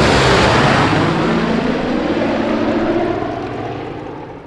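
Propeller aircraft engines droning as the plane passes, loud at first and then fading away over the last couple of seconds.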